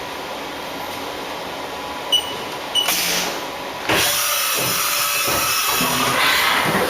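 Haas 5-axis vertical machining center starting its cycle. Two short, high beeps come about two and three seconds in. A rushing noise follows, and from about four seconds in the machine runs with a louder, steady whir whose pitch shifts as it moves.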